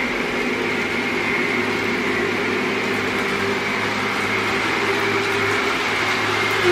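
Lionel O-gauge GE Evolution Hybrid model locomotive running with a train of tank cars: a steady mechanical hum from its motors, its wheels on the track and its onboard sound system. A horn blast starts right at the end.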